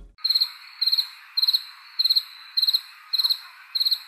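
Cricket chirping, the stock 'crickets' sound effect for an awkward, empty silence. Evenly spaced short trilled chirps, a little under two a second, over a faint steady hiss.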